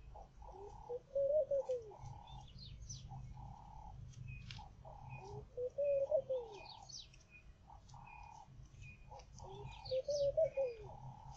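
Dove cooing, one arched, low call three times about every four and a half seconds, among other birds chirping.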